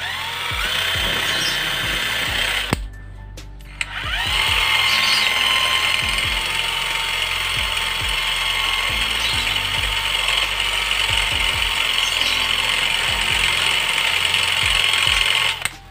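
Cordless drill spinning a small part in its chuck against a hand-held sanding disc, grinding the part down to a smaller diameter. The drill runs, stops for about a second around three seconds in, then spins up with a rising whine and runs steadily until just before the end.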